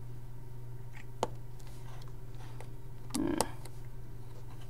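Lego bricks clicking as they are pressed onto a plate: one sharp click about a second in and a few fainter ones, over a steady low hum.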